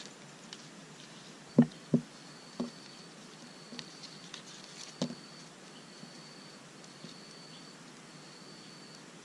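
Strips of bark handled and woven by hand, with a few sharp thumps about one and a half to two seconds in and again around five seconds, and light ticking between them. A high trill repeats about once a second in the background.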